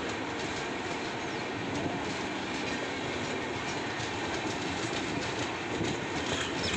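Red-and-grey LHB passenger coaches rolling past alongside the platform, a steady rumble of wheels on the rails.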